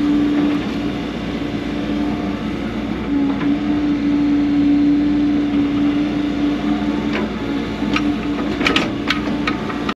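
Mini excavator's diesel engine running under load with a steady hydraulic whine, heard from the operator's cab while the bucket digs soil. A few sharp clanks near the end.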